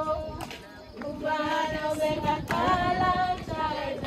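A group of women singing together in long held notes; the singing drops out about half a second in and comes back about a second in.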